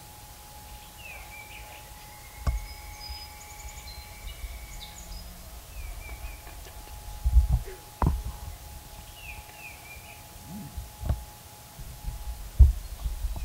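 Small songbirds chirping and calling in short phrases, with one longer whistled note. Several low thumps are scattered through, the loudest near the end.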